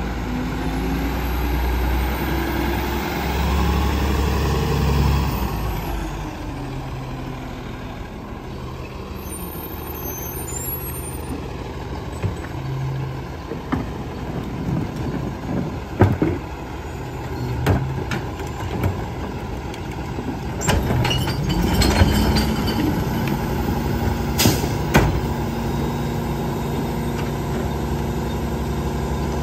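Peterbilt garbage truck with a New Way rear-loader body, its diesel engine running loud and changing pitch as it pulls up, then settling to a quieter run. From about two-thirds of the way through come sharp clanks and knocks at the rear as recycling carts are handled, and the engine rises to a steady higher drone.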